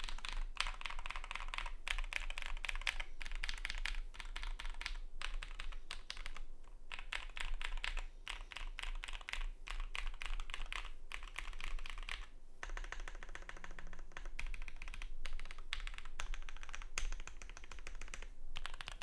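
Typing on a custom full-size mechanical keyboard (Keychron Q6, steel plate) with lubed SP Star Meteor White V3 linear switches and PBT keycaps: fast continuous keystrokes in runs with short pauses between.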